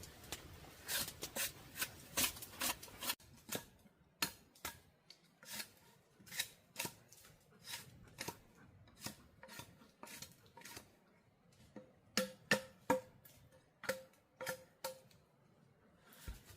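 Knife cutting in short sharp strokes, about two a second, some with a brief ring like a blade striking a board. A steady hiss under the first three seconds stops abruptly.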